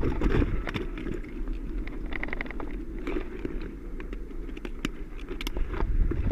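Low wind rumble on the microphone, with scattered sharp clicks and knocks and a short run of quick ticks about two seconds in.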